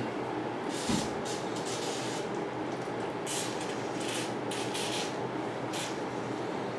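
Aerosol can of WD-40 sprayed in about seven short hissing squirts onto slightly rusty bicycle stem bolts, with a small knock about a second in.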